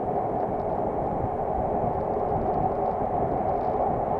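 Steady, dull rush of wind and tyre noise picked up by an action camera mounted on a road bike riding in a pack of cyclists.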